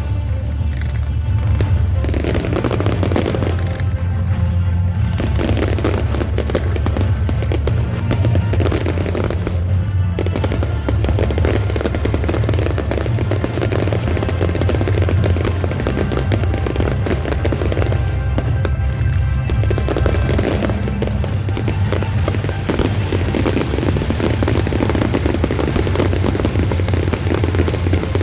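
A fireworks display: a continuous barrage of bursts and crackling, heard together with background music.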